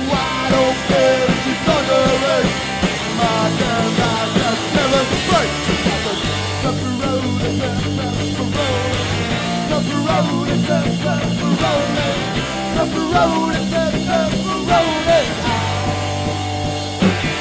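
Rock music playing continuously, with sustained bass notes under a wavering melody.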